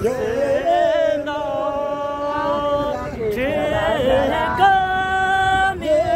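A singing voice in a song, holding long notes with vibrato in phrases of a second or two.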